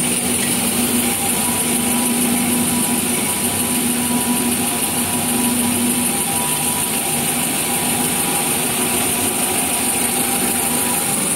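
Kitchen towel paper rewinding machine running: a steady mechanical hum with a strong high hiss and a few steady tones.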